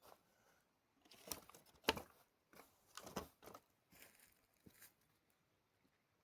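Irregular crinkling and rustling, a run of soft crackles and scrapes, loudest about two seconds in and dying away about five seconds in.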